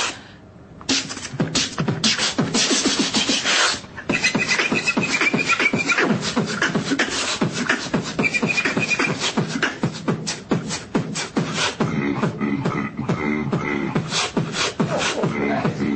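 Beatboxing: a man's mouth-made drum beat of rapid clicks and hits, starting about a second in, with a high whistled tone laid over it twice.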